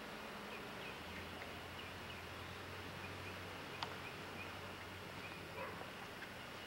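Faint outdoor ambience: short high chirps repeating several times a second over a low hum that comes in about a second in and fades out after about five seconds, with a single sharp click near the four-second mark.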